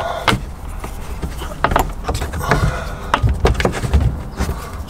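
Irregular clicks, taps and rustling as a dash cam power cable is pushed by hand into the gap along the vehicle's headliner trim.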